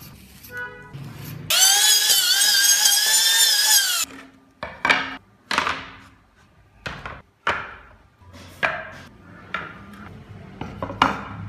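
An electric power tool whines for about two and a half seconds, starting and stopping abruptly. About eight short separate strokes on wood follow.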